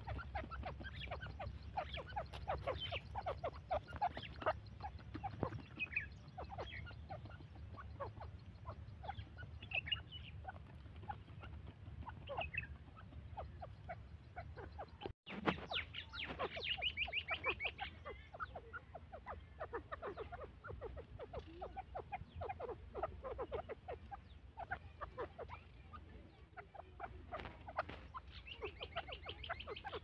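Partridges (teetar) giving soft, rapid, repeated clucking calls mixed with short high chirps, over a low steady rumble.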